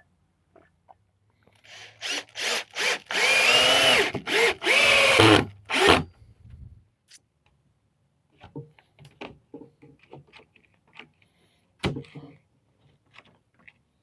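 Power drill driving a screw into pallet wood: a few short trigger pulses, then two longer runs with the motor pitch dipping and rising under load, stopping about six seconds in. After that, scattered light clicks and knocks of wood and tools being handled, with one sharper knock near the end.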